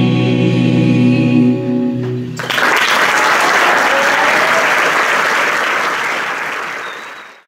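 Choir and band holding a final chord, which breaks off about two and a half seconds in; audience applause follows and fades out near the end.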